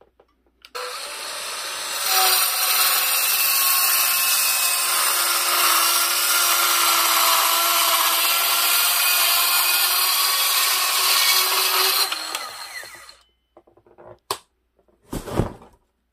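Makita 3-3/8-inch cordless circular saw starting up, then cutting into a wooden 2x4 for about ten seconds, the blade biting through the wood in a steady loud whine. The motor then runs down, and two knocks follow, the second louder.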